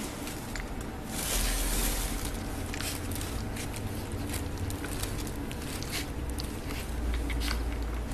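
Rustling and handling noises as a puppy is dressed in a fabric dress, with a low rumble and scattered small clicks.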